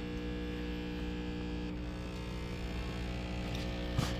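Sampling pump of a QROTECH QRO-401 exhaust gas analyser running with a steady hum, drawing normally through a correctly oriented filter with no flow error or low-pressure warning. A brief click about four seconds in.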